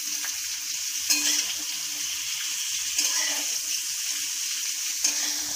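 Sliced onions sizzling as they fry in hot mustard oil in a metal kadai: a steady hiss with a few small pops.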